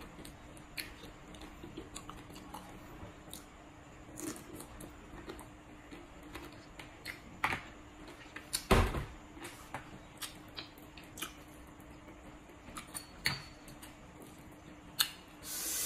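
Quiet eating sounds: soft chewing with scattered small clicks and taps of wooden chopsticks and food against a plate, a louder bump about nine seconds in and a short breathy hiss near the end.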